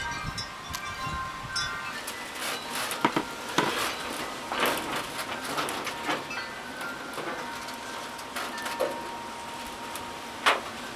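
Hand trowel and gloved hands working garden soil while a lettuce seedling is dug up and transplanted: irregular scrapes, crumbles and small knocks, the sharpest knock near the end. Faint steady ringing tones sound behind them.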